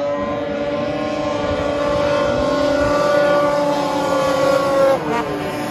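Watercross snowmobiles racing across open water, their engines held at a high, steady whine. The pitch drops sharply about five seconds in.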